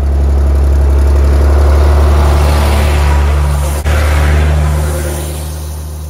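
Tractor engine running steadily as the tractor, carrying a mounted fertiliser spreader, drives close past and away. It is loudest in the first couple of seconds and fades as it moves off, with a brief sharp click about four seconds in.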